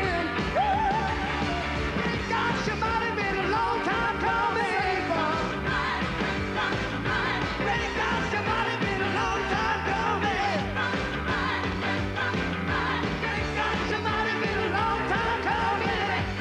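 Live rock and roll song: band and piano playing with a man singing.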